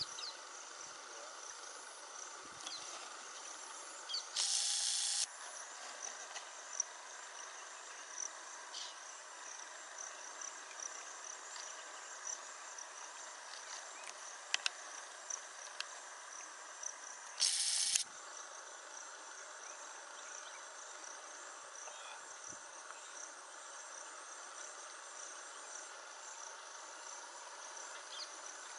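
Insects chirping in a steady, high, pulsing chorus over a soft outdoor hiss. Two brief, loud, high buzzing bursts cut in, one about four seconds in and a shorter one later, with a few faint clicks between them.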